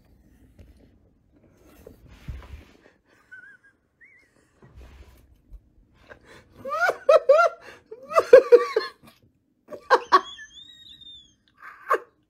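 A person breaks into hard laughter about six seconds in, a quick run of short laughs with gasps, and laughs again twice near the end. Before that there is only faint rustling and a couple of low, dull thumps.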